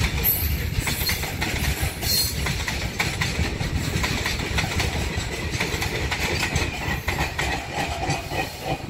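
Freight train of covered goods wagons rolling past, its wheels clicking rapidly over the rail joints over a continuous low rumble.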